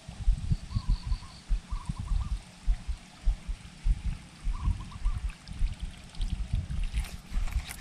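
Wind buffeting the microphone in irregular low rumbling gusts, with a few faint chirps and a few sharp clicks near the end.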